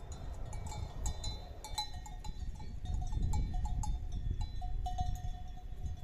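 A livestock bell worn by a grazing sheep clinking irregularly, two or three ringing strikes a second, over a low rumble.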